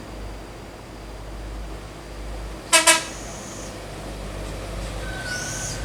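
A passing bus's engine rumbles low and steady, and about two-thirds of the way in its horn gives two quick toots.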